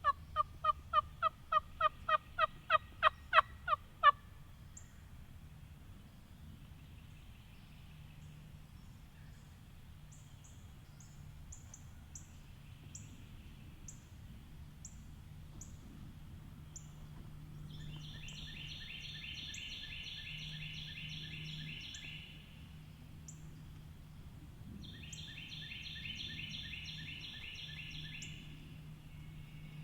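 A turkey yelping: a run of about a dozen evenly spaced yelps, getting louder, over the first four seconds. High songbird chips follow, then two bursts of rapid, high bird trilling later on.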